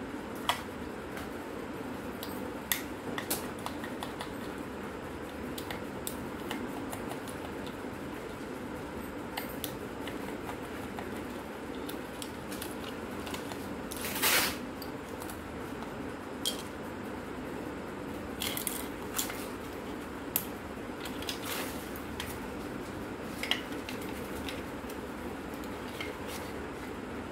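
Plastic camera body and its small parts clicking and clattering as they are handled and pulled apart by hand: scattered sharp clicks, with one louder, longer crackle about halfway through, over a steady low background hum.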